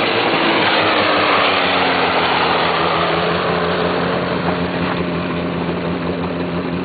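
An 800cc Ski-Doo snowmobile's two-stroke engine running steadily, its pitch easing down a little in the first second or so, then holding level.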